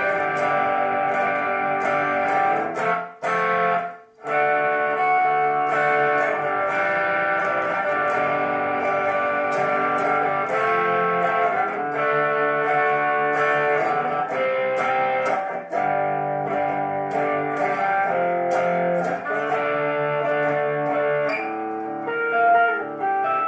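Guitar music: an electric guitar playing a sustained melody, which drops out briefly about three seconds in and then resumes.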